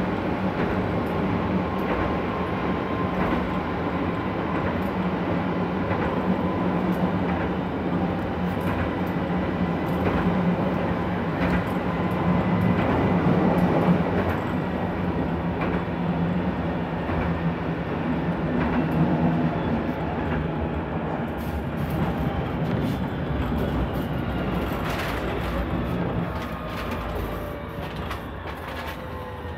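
Steady running noise of a tram heard from inside the car: wheels on rails with a low hum and scattered clicks and knocks. In the last several seconds a falling electric whine comes in as the noise eases off, the sound of the tram slowing down.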